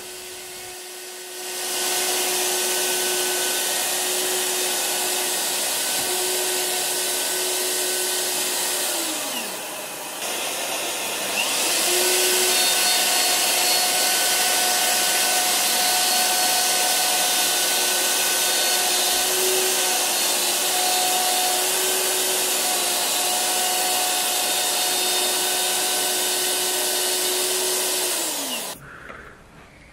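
Plunge router running at full speed while cutting a dado through plywood, with a dust extractor drawing through its hose. The motor winds down about nine seconds in and starts again a couple of seconds later. It winds down a second time near the end.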